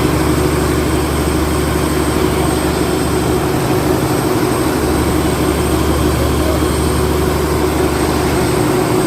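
Fishing boat's engine running steadily with a loud, even drone.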